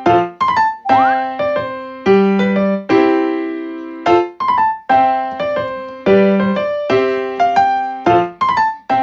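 Background music: a bright electric piano playing a light, bouncy tune in separate struck notes and chords that ring and fade.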